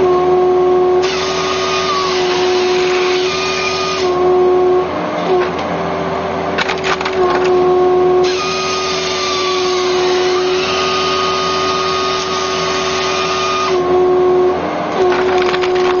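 Crane-mounted hydraulic firewood processor running with a steady tone, its saw cutting through a birch log in two long noisy stretches, about a second in and from about eight seconds to nearly fourteen. In between, split firewood pieces clatter down into the trailer.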